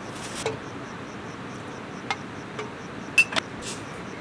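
Insects chirping steadily in an even, fast high pulse, with sharp clinks of a glass bottle and glass being handled while a highball is mixed; the loudest are a pair of clinks a little past three seconds in.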